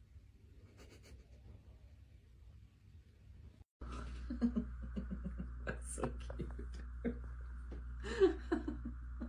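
Faint room noise, then from about four seconds in a steady low hum with scattered light clicks and taps and one brief louder pitched sound near the end.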